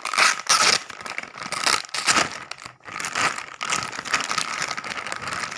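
Clear plastic polybag crinkling as hands open it, on and off throughout, loudest in the first second.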